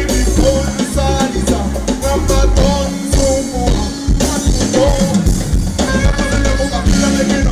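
Dance music with a steady drum-kit beat and a singing voice.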